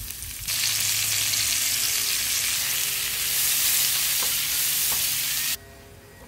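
Sliced onions hitting a hot pan and sizzling loudly, tossed with tongs that give a couple of faint clicks; the sizzle starts about half a second in and cuts off suddenly near the end.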